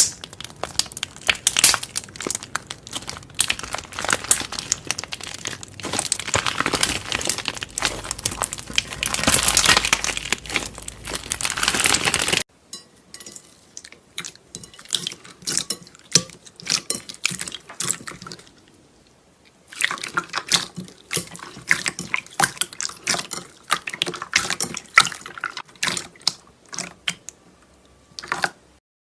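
Slime being squished and worked by hand: a dense run of wet, sticky clicks and crackles. It cuts off abruptly about twelve seconds in, then comes back as sparser clicking in two stretches with a brief pause between them.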